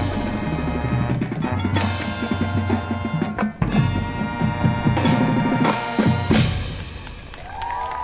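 Marching band and front-ensemble percussion playing a loud brass-and-drum passage with heavy hits, the last about six seconds in, after which the music drops away and crowd cheering starts near the end.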